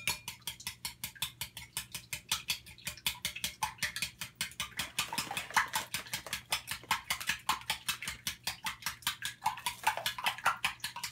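Fork whisking eggs in a glass bowl: quick, even clinks of the fork against the glass, about five or six a second.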